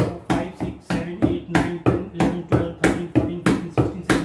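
Rapid hand taps on a tabletop, about four sharp slaps a second with a short low ring after each. This is the plate tapping coordination test: one hand strikes the paper marks on the left and right in turn while the other rests on the centre.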